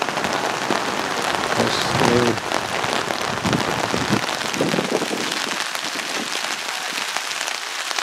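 Heavy rain pouring steadily, hitting surfaces with a dense hiss, while a few voices call out briefly within the first five seconds.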